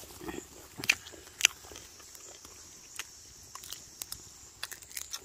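Someone chewing and biting crunchy food: scattered sharp crunches and clicks, the two loudest about a second and a second and a half in.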